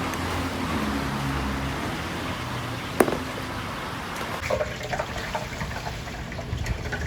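Sweet potato balls deep-frying in hot oil, a steady sizzling hiss over a low hum. There is a sharp click about three seconds in, and after the middle the sizzle turns to many short crackling pops.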